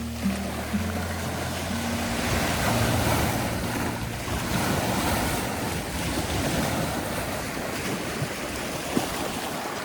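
Ocean surf washing in, a steady rushing that swells about three seconds in. A few held low notes sound at the very start.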